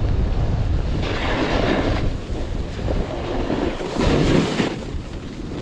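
Strong wind buffeting the microphone during a snowboard run, with a heavy low rumble at first. The hiss of the snowboard sliding over snow surges twice, about a second in and again about four seconds in.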